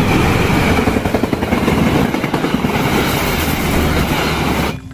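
Train sound: a train running with its wheels clattering over the rails, loud and steady, cutting off abruptly near the end.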